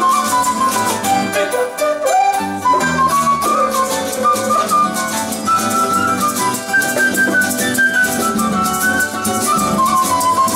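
Instrumental break of a Latin American folk tune: a wooden end-blown flute plays the melody over strummed acoustic guitars and steadily shaken maracas.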